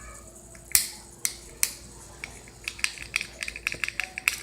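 Hard plastic clicks from a fidget toy being worked by hand: three separate sharp clicks, then a quicker run of clicks, several a second, from a little under three seconds in.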